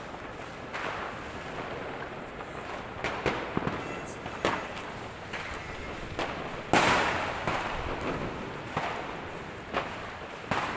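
Firecrackers and fireworks going off at irregular intervals, some sharp and close, others distant, over a steady din of further bursts. The loudest bang comes about two-thirds of the way through, with a long rolling echo after it.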